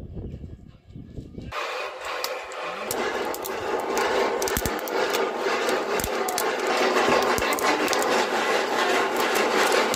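Maize kernels rattling and popping in a flat iron roasting pan over a wood fire: a dense crackle full of sharp pops that starts about a second and a half in and grows louder.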